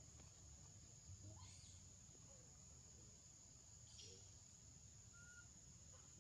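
Near silence: faint outdoor ambience with a steady high-pitched whine and a few faint short chirps.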